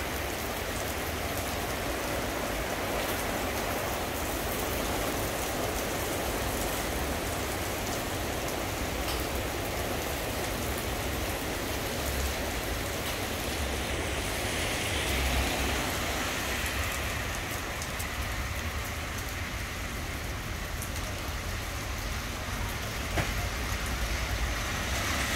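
Steady heavy rain hissing down on the pavement and street. About halfway through, the rain is joined by a vehicle swishing past on the wet road, rising and falling over a couple of seconds.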